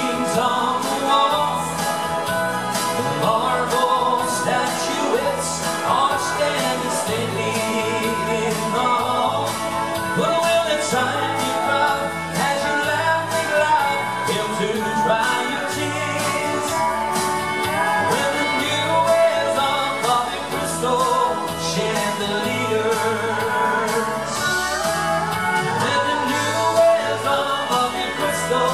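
Male vocalist singing a country song live into a microphone through a PA, over amplified backing music with a steady beat.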